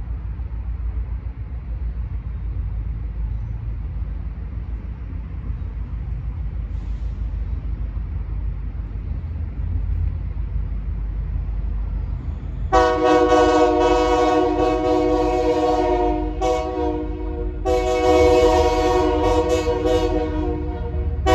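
Diesel locomotive air horn on an approaching BNSF local freight train, sounding two long blasts with a short break between them. Before the horn there is a steady low rumble.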